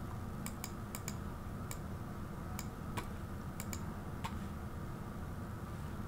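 Scattered light clicks from a computer's mouse and keys, about ten in the first four and a half seconds, some in quick pairs, over a steady low hum.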